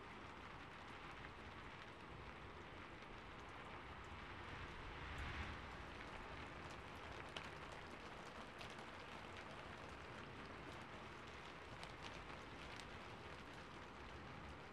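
Rain falling on a rooftop: a soft, steady patter with a few sharper single drops standing out.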